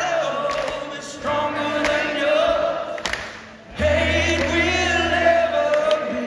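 Live rock song sung by many voices together, as the chorus is sung along, in phrases with short breaks between them; a low bass note comes in about four seconds in.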